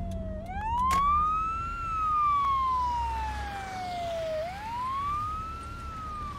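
Emergency-vehicle wail siren that the driver takes for an ambulance's. Each cycle rises quickly and then falls slowly, about four seconds per cycle, with the low hum of the car interior underneath. There is a single sharp click about a second in.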